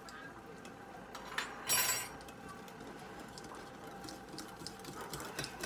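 Wire whisk beating gram-flour batter in a glass bowl, its wires ticking quickly and lightly against the glass, as ENO fruit salt is mixed in to make the batter fluffy. One louder clink about two seconds in.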